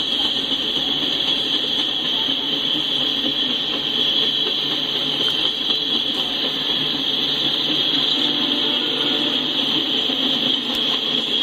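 Freight train of coal hopper cars rolling past, a steady rumble of steel wheels on rail with a steady high-pitched hiss over it.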